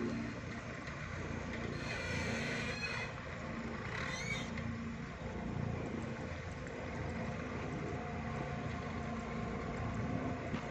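Distant forklift running with a steady low engine rumble. A brief hiss comes about two seconds in, and a short rising squeal about four seconds in.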